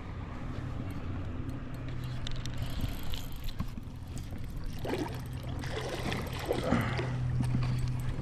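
Water splashing and gurgling around a kayak's hull, with a run of louder splashes between about five and seven seconds in.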